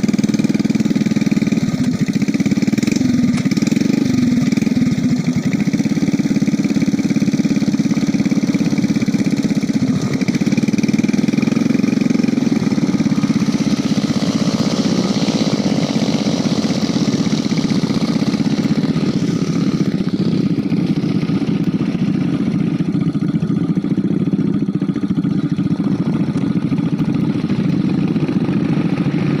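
Motorcycle engine running steadily at a constant pitch, a low even drone.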